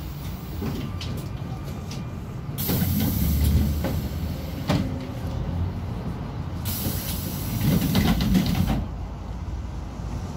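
Cabin noise of a ZiU-682G-016 trolleybus on the move: a steady low rumble, with two loud bursts of hiss about two seconds long each, one starting about two and a half seconds in and one about seven seconds in.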